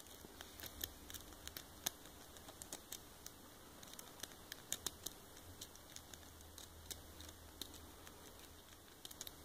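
Faint, irregular small metal clicks and scratches of a half-diamond lock pick working the pins of a six-pin bullet lock, with a few sharper clicks among them.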